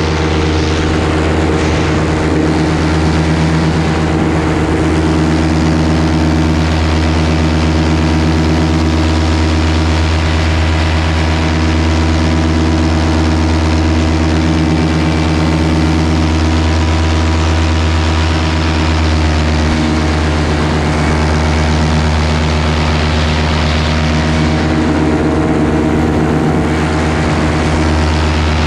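Paramotor engine and propeller running steadily in flight: a loud, even drone of unchanging pitch, with wind rushing past.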